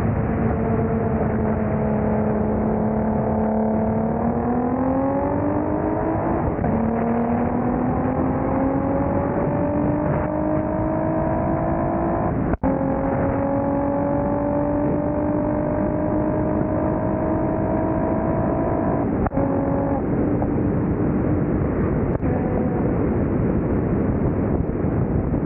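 Stage 3 Audi B5 S4 engine heard from inside the car. It holds a steady cruising note for a few seconds, then its pitch climbs steadily as the car accelerates. The note drops at a gear shift about halfway through and again at a second shift about three-quarters through, then the engine eases off near the end.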